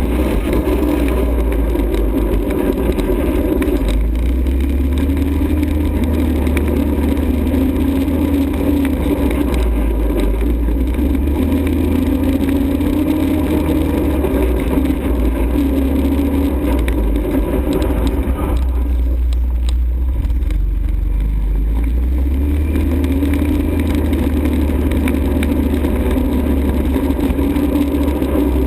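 ATV engine running while riding, its pitch rising and falling with the throttle, over a heavy low rumble.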